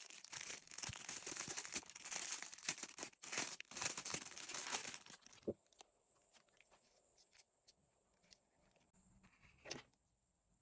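Packaging being torn open and crinkled by hand, a dense crackling rustle for about five seconds. After that it drops to a few light taps and clicks as items are handled.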